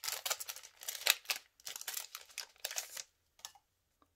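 Foil wrapper of a Yu-Gi-Oh! booster pack crinkling and tearing as it is opened by hand. The crinkling stops about three seconds in, followed by a couple of faint ticks.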